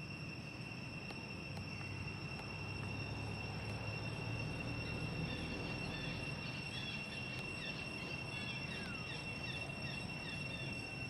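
Steady high-pitched drone of insects, with a quick run of short high chirps from about halfway through over a low outdoor background rumble.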